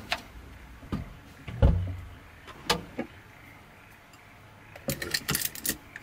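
Ceramic lid set onto a small clay donabe rice pot, clinking several times near the end. Before it come a dull thump and a few light knocks of things being handled on a wooden table.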